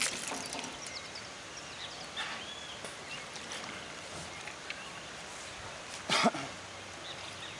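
Outdoor pond background with a short splash at the start as a fish strikes at the fishing float, a few short bird chirps, and a brief loud burst with a falling pitch about six seconds in.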